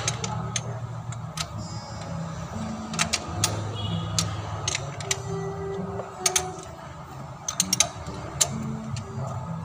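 Scattered sharp metal clicks and clinks of a socket wrench and hand tools working the valve cover bolts on a car engine, coming irregularly, with a cluster of quick clicks near the end, over a low steady hum.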